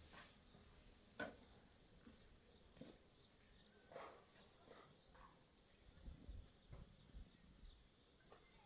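Near silence: a faint, steady, high-pitched insect chirring, with a few light clicks and knocks, the clearest about a second in and about four seconds in.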